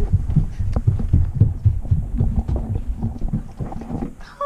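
Low, irregular thumps and rubbing of a handheld camera being carried at a walk: footsteps and handling knocks on the microphone, several a second.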